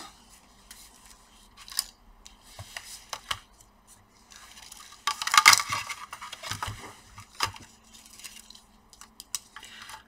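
Gloved hands handling a laptop motherboard and its plastic bottom case while fitting the board back in: scattered light clicks and taps, with a louder rustling scrape about five seconds in.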